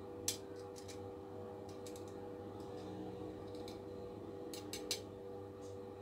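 A few scattered light clicks and taps of a metal spoon and a metal star-shaped cookie cutter against a ceramic platter as the cutter is worked loose from the salad, the sharpest just after the start and about five seconds in. A steady hum runs underneath.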